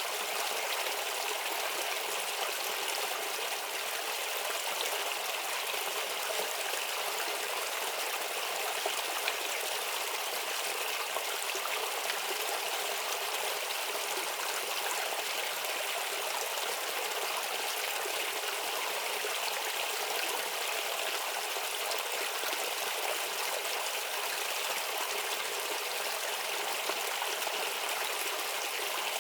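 A shallow stream babbling and trickling steadily, with an even rush of water.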